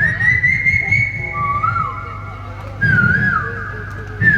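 A man whistling an imitation of an Asian koel's call: long high whistled notes that warble and slide up and down. A new, louder phrase starts about three seconds in.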